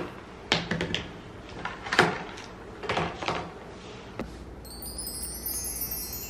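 Small skincare bottles and caps being picked up, opened and set down: a handful of light clicks and knocks spread across the first four seconds. A high, shimmering chime-like sound comes in about two-thirds of the way through.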